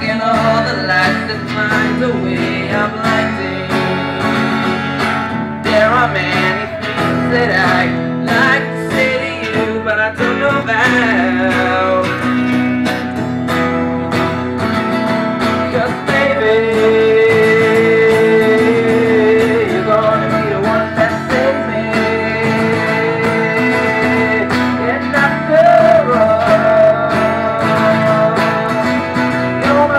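Acoustic guitar strummed live with a young male voice singing over it, holding long notes in the second half.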